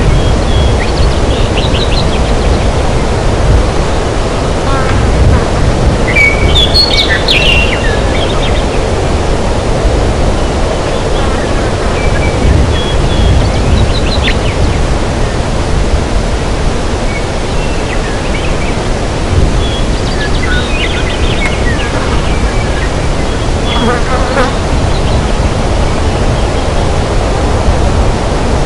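Forest ambience: a steady, loud rushing noise with short bird chirps scattered through it, a busier burst of chirping about seven seconds in and again around twenty seconds in.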